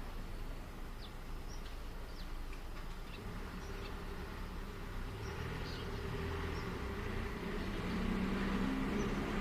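Suburban outdoor ambience with a steady low background hum. A few short high bird chirps come in the first half, then a vehicle engine approaches and grows louder through the second half.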